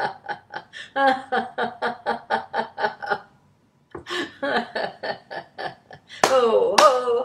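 A woman laughing in quick, rhythmic ha-ha pulses, the deliberate laughter of a laughter-yoga exercise. It breaks off briefly about three seconds in, then starts again. Near the end it grows louder, with sharp hand claps mixed in.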